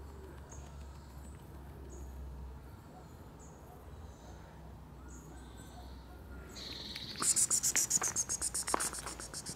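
High-pitched chirping: faint short chirps at first, then a loud, fast trill of about ten pulses a second starting about seven seconds in, with a few sharp knocks.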